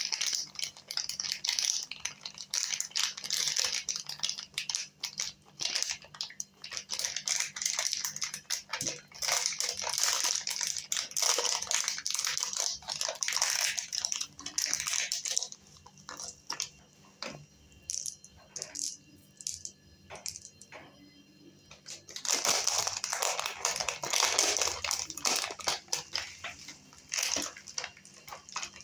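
Crinkling and rustling of a Cadbury Shots foil-lined chocolate wrapper being opened and handled by hand. Dense crackling for the first half or so, a quieter stretch of scattered crinkles past the middle, and another loud burst of crinkling later on.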